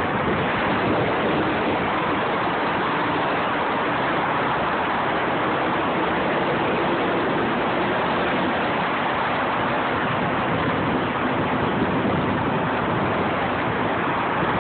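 Steady road and wind noise inside a car moving along a freeway: an even rushing of tyres and air with no distinct events.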